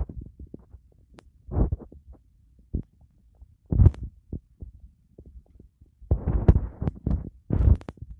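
Irregular low thumps and rumbling, typical of the phone being handled against its microphone, with a few short louder rushes of noise about a second and a half in, about four seconds in, and between six and eight seconds.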